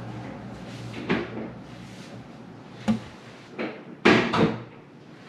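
Several knocks and clunks of things being handled, about five in all, the loudest two close together about four seconds in.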